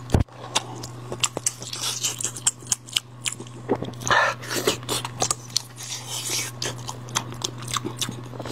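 Close-up eating sounds of spiced sheep's head: crunching, biting and wet chewing with many irregular sharp clicks, the sharpest just after the start. A steady low hum runs underneath.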